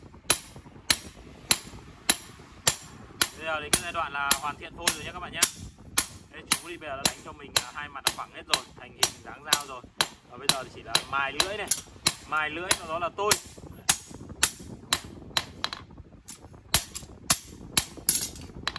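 Hand hammer striking a steel knife blade on an anvil in a steady rhythm of sharp, ringing blows, about two a second.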